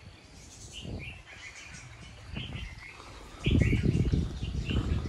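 Small birds chirping in short, repeated high calls. About three and a half seconds in, a louder low rumble on the microphone, from wind or handling, partly covers them.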